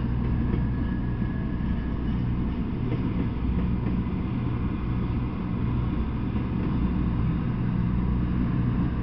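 Intermodal freight train of semi-trailers on flatcars rolling past, giving a steady low rumble of wheels on rail.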